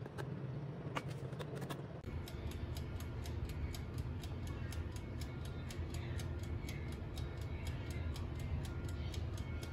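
Oven's mechanical dial timer ticking fast and evenly, about five ticks a second, over the oven's low running hum, starting about two seconds in. Before that, a few light clicks of a metal ladle in a metal baking tray.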